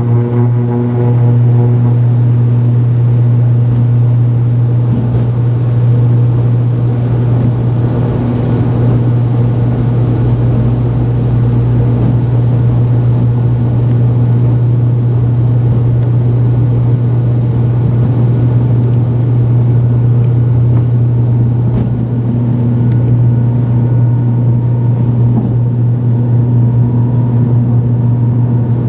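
ATR 72-500 turboprop's Pratt & Whitney PW127 engines and propellers running steadily at high power, heard from inside the cabin: a deep, even propeller drone over a rushing noise.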